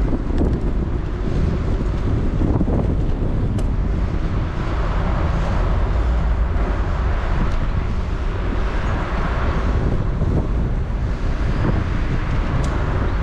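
Wind rumbling on the microphone with road and traffic noise while riding, steady throughout, with a hiss that swells and fades around the middle.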